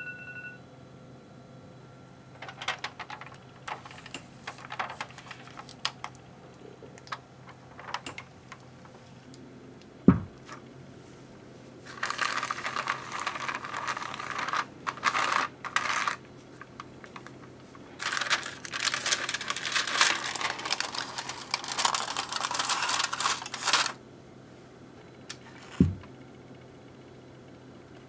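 Aluminium foil crinkling and rustling in two long stretches as it is wiped with a paper towel and peeled off an enamel container. Scattered light clicks and knocks run through the first ten seconds, with a sharp thump about ten seconds in and another near the end.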